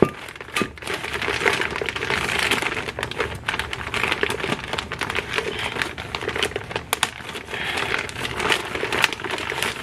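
Clear plastic bag crinkling and rustling in irregular crackles as gloved hands work it open and pull it off a new brake rotor.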